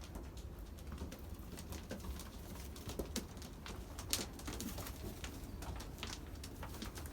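Young racing pigeons cooing in a loft, with scattered light clicks and knocks as they move about, the sharpest about four seconds in, over a low steady rumble.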